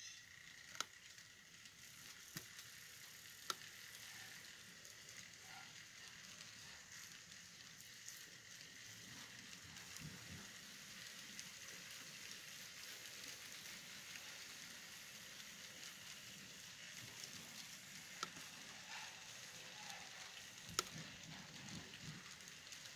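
Model freight train cars rolling past on the track: a faint, steady rolling hiss with a few sharp clicks.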